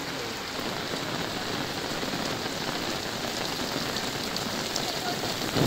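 Steady rain falling, with drops pattering on an umbrella overhead.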